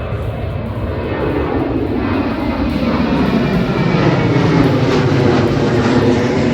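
Airliner's engines as a plane passes close by, a steady roar that grows louder over the seconds and is loudest near the end.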